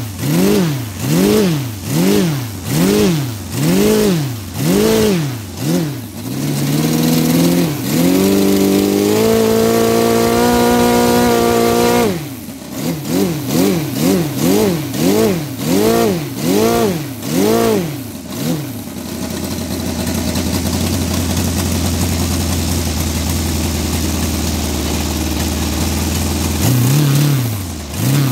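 A Saito FG-60R3 three-cylinder four-stroke petrol radial model aircraft engine on its test run after repair, turning its propeller. It is revved in quick repeated throttle blips, about one and a half a second, and held at high revs for a few seconds. It is blipped again, then drops to a steady idle for about eight seconds before the blips resume near the end.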